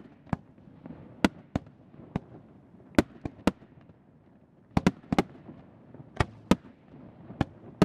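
Aerial firework shells, ring shells among them, going off in a display: about a dozen sharp booms at irregular intervals, several coming in quick pairs.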